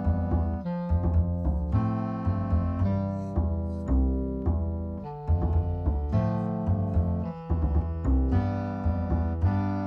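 Background music: piano with a deep bass line, notes changing in a steady rhythm.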